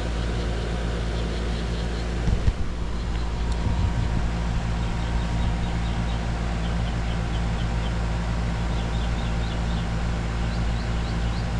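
Air-conditioner condensing unit's compressor humming steadily while it pulls about 46 amps, a draw that sends the tech to suspect the capacitor. A single thump about two and a half seconds in.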